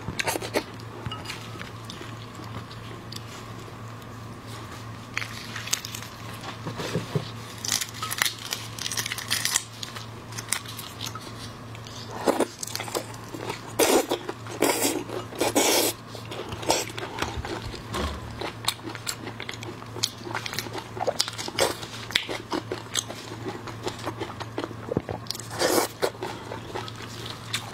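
Close-miked eating of raw marinated shrimp: irregular crunchy bites and wet chewing, with louder crackling bites in clusters. A steady low hum runs underneath.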